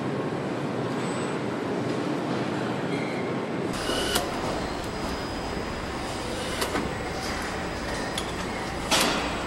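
Car assembly hall noise: a steady mechanical hum with a few scattered metallic clicks and clanks. A deeper rumble comes in about a third of the way through, and a sharper clank sounds near the end.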